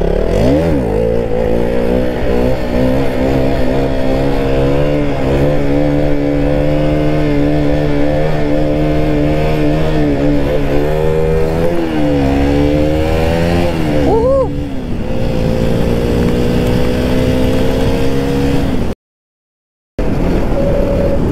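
KTM single-cylinder motorcycle engine heard from the rider's seat, revving up as it pulls away and then running steadily under way. The revs dip and rise again past the middle, with a quick rev rise and fall a little later. The sound drops out completely for about a second near the end, then carries on.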